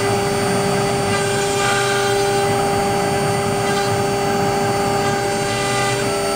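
A CNC router spindle running with a steady whine while its bit engraves lettering into a wooden board, the noise of the cutter in the board heard beneath it.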